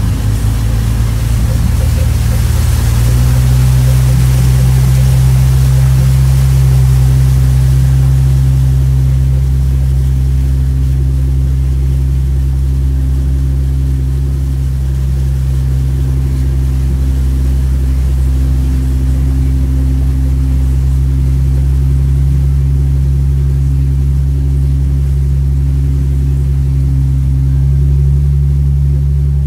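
A vehicle engine running steadily with a deep, even hum while driving slowly through standing floodwater on a street, with a hiss in the first few seconds.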